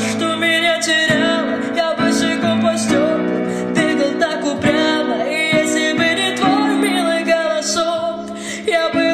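A woman singing a Russian pop song over acoustic guitar.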